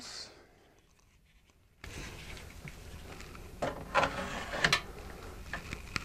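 Hands fitting hardware and cables into a small equipment rack: a few short clicks and knocks of plastic and metal parts, the clearest around the middle, over a faint steady background.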